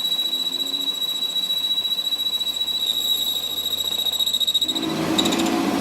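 Workshop machinery: a steady high-pitched whine, then about a second before the end a loud, rapid rattling starts.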